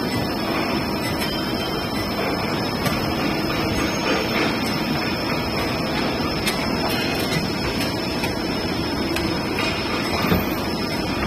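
Concrete square pile cage welding machine running: a steady mechanical din with a constant high whine and a few light clicks.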